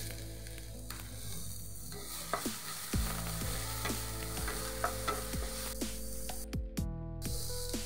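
Chopped onions sizzling in hot oil in a nonstick pan while a wooden spatula stirs them, with scattered clicks and scrapes of the spatula against the pan.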